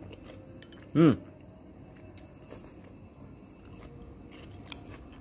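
A person quietly chewing pickled fruit from a spicy asinan broth, with a short hum that falls in pitch about a second in and a couple of light clicks near the end.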